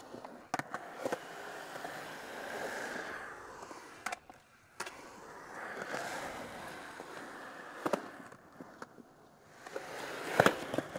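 Skateboard wheels rolling on smooth concrete, rising and fading twice, with sharp clacks of the board striking the surface; the loudest clack comes near the end.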